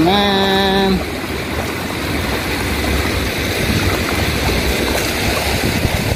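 Shallow river water sloshing and splashing as a person wades through it, dragging a cast net heavy with fish.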